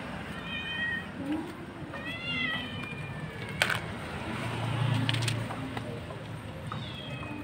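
A street cat meowing for food: two drawn-out high meows in the first few seconds and a short one near the end. A single sharp click about halfway through.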